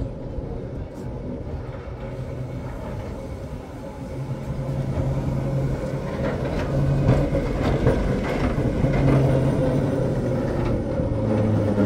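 A motor vehicle running with a low, steady hum, getting louder about four seconds in.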